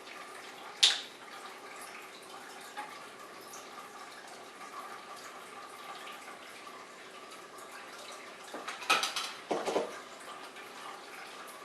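Kitchen utensils and dishes clinking and knocking: one sharp clink about a second in, then a cluster of clattering near the end, over faint steady room noise.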